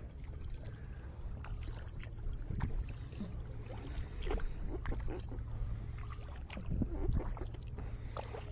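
Double-bladed kayak paddle strokes in calm water: the blades dip and pull with small splashes and drips, over a low steady rumble.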